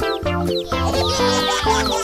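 Upbeat, bouncy background music for a children's animal video.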